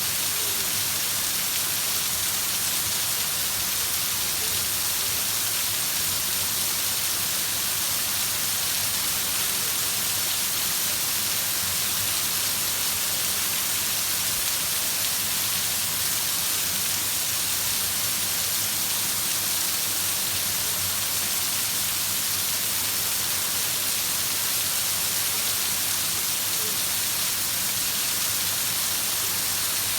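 Heavy rain falling steadily, an even hiss with no change in strength.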